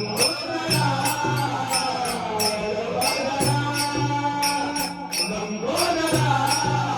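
Bhajan group singing a devotional chant to Ganesh in a slow, drawn-out melodic line. Metallic hand percussion strikes about twice a second over a sustained low accompaniment.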